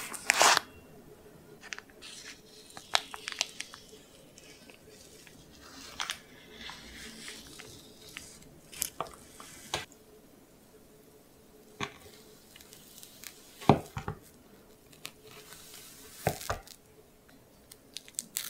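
Crisp, irregular crunching and crackling of crumbled Oreo cookie topping: a stainless steel mousse frame is slid up off the cake, then a serrated knife saws down through the cookie crumbs and cream layers. The loudest crunches come right at the start and about 14 seconds in.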